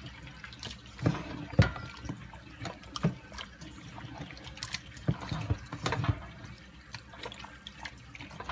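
A bare hand squishing and turning pieces of venison in a sauce marinade in a stainless steel bowl: irregular wet squelches, slaps and sloshes.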